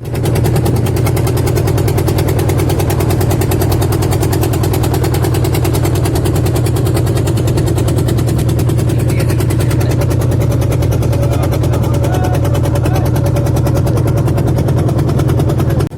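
An engine running steadily at a fast, even beat.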